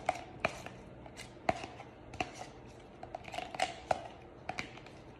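A utensil stirring thick conditioner and hair dye in a plastic takeout container, clicking and knocking against its sides in irregular taps about twice a second.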